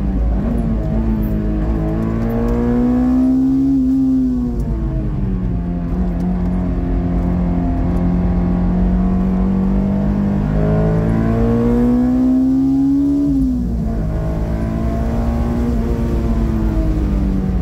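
Honda S2000's four-cylinder VTEC engine pulling hard on track, heard from inside the cabin. Its pitch climbs steadily, then drops sharply twice, about four and about thirteen seconds in.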